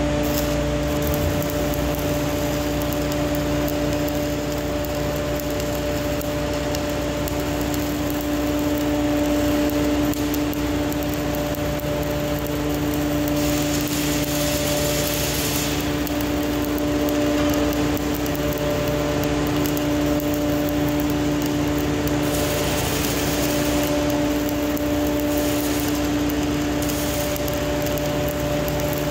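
Stick-welding arc crackling and hissing as a Lincoln 308 stainless 1/8-inch electrode is run vertical-up at about 127 amps. Under it is a steady machine hum with an even pitch, and the hiss swells twice along the way.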